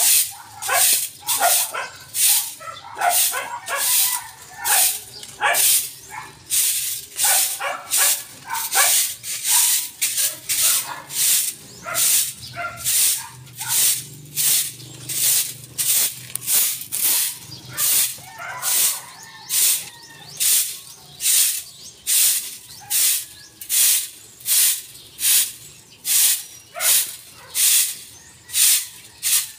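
Soft grass broom sweeping a concrete floor: a steady rhythm of brushing swishes, about one and a half strokes a second.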